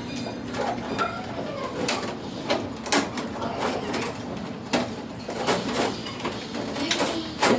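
Irregular sharp clicks and knocks of plastic parts being handled on an air conditioner being reassembled.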